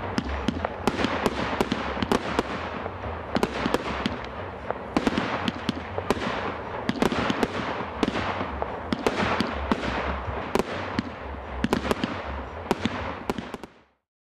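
Fireworks going off: a rapid, irregular string of sharp cracks and bangs, several a second, over a steady rushing hiss, cutting off suddenly near the end.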